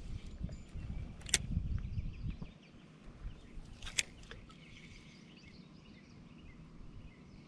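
Two sharp clicks from a spinning reel, about a second in and again about four seconds in, as the bail is worked around a cast. Low wind rumble on the microphone fills the first couple of seconds, and birds chirp faintly behind.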